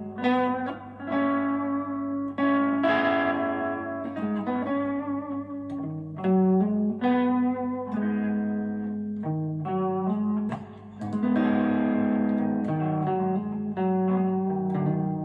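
Goldtop Les Paul electric guitar with Parson Street Golden Age humbucking pickups, played through an amp in a run of picked single notes and chords, several notes held and left to ring.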